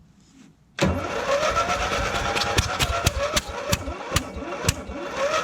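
Riding mower's electric starter cranking the engine from about a second in: a whirring, mechanical run with a rising whine that repeats about twice a second and scattered sharp clicks. It turns over sluggishly, which the owner puts down to a dead battery or a failing starter.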